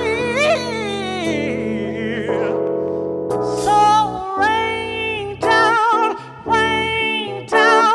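Soulful R&B singing: a voice doing fast melismatic runs with vibrato over sustained accompaniment chords, breaking off briefly several times in the second half.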